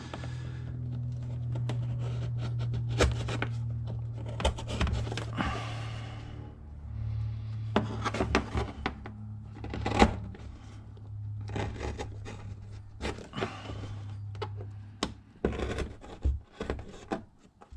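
Hands and tools working on a leather belt's buckle and Chicago screws: scattered clicks, knocks and scrapes of metal and leather over a steady low hum.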